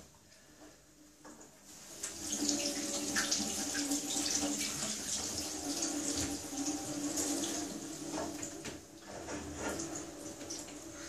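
Kitchen tap running into a stainless-steel sink, the water splashing over an enamel cooking pot as it is rinsed and wiped by hand. The water comes on about two seconds in and runs steadily after that.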